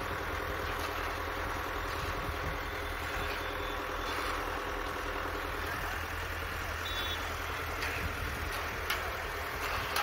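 Transit concrete mixer truck's diesel engine running steadily with its drum turning while concrete is discharged down the chute. Occasional scrapes and knocks of hand tools spreading the wet concrete.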